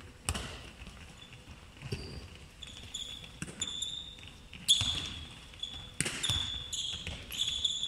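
A handball thudding on a wooden sports-hall floor several times, loudest about two-thirds of the way in, while sports shoes squeak in short high chirps on the court floor; the hall makes it echo.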